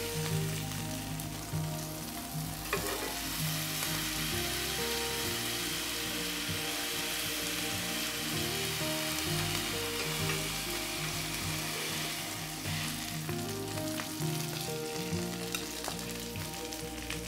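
Watermelon, apricot halves and asparagus sizzling steadily in a hot ridged grill pan, with a few light clicks of metal tongs. Soft background music plays beneath.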